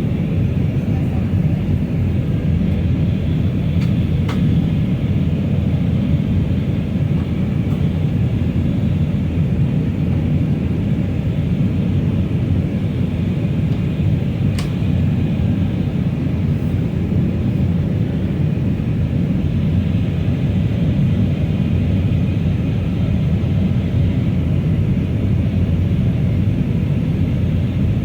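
Steady cabin rumble of an Airbus A319 in descent: the low roar of its CFM56 turbofan engines and the airflow over the fuselage, heard inside the cabin, with a couple of faint clicks.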